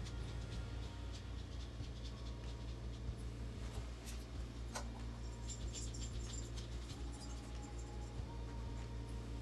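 Fine paintbrush scratching lightly on canvas, with scattered small ticks, over a steady low hum.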